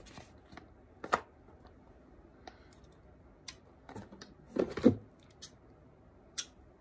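Scattered light clicks and taps of small objects and packaging being handled and moved about on a table, with a brief louder knock or murmur a little before five seconds in.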